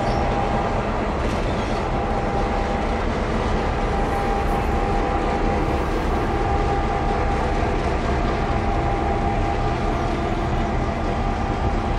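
Vintage Victorian Railways diesel-electric locomotives X31 and T378, coupled together, running steadily as they haul a heritage passenger train away. A constant engine note carries a thin steady whine above it.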